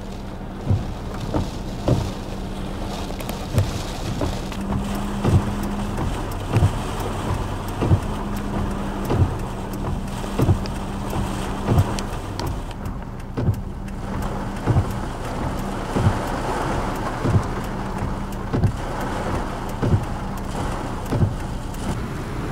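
Hurricane-force wind and heavy rain making a steady rushing noise, with a steady low hum and a short low thump about once a second.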